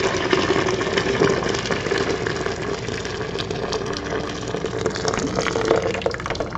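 Hot water poured in a steady stream from a kettle into a plastic pitcher holding tea bags, splashing as it fills; the stream cuts off at the end.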